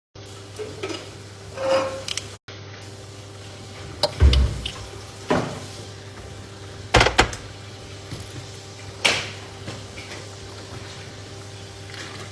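A few separate knocks and clatters of objects being handled, one of them a heavier thump, over a steady low electrical hum.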